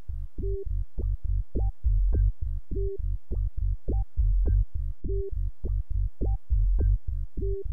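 Background electronic music: a pulsing low bass beat at about four to five pulses a second, with short high synth notes in a repeating pattern.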